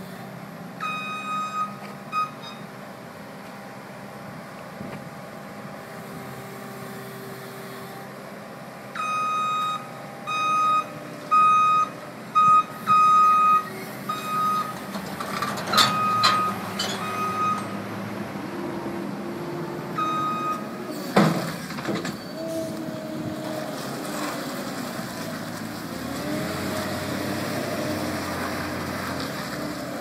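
SV185 skid steer loader's diesel engine running while its reversing alarm beeps in short runs as it backs down the trailer ramps, with two loud clanks about sixteen and twenty-one seconds in as it comes off the ramps. After that the engine revs up and down as the machine drives off across the pavement.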